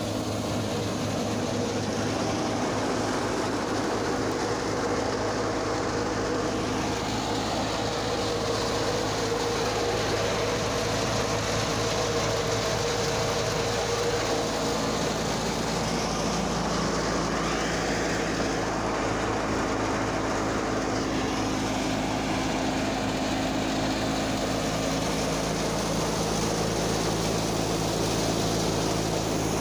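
Wheat thresher belt-driven by a Fiat 480 tractor's diesel engine, running steadily under load as wheat is fed in: a constant mechanical drone with a steady low hum. Its tones shift slightly about halfway through.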